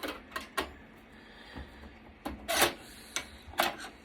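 Irregular clicks, knocks and a short rattling scrape of plastic and metal computer parts being worked loose by hand while an HP desktop is taken apart. The longest and loudest rattle comes about two and a half seconds in.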